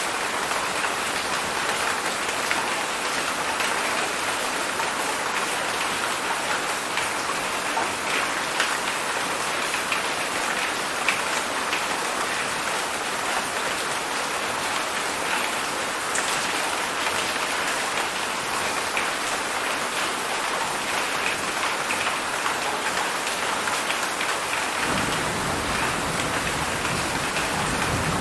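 Heavy rain falling in a steady, dense hiss. Near the end a low rumble sets in under it.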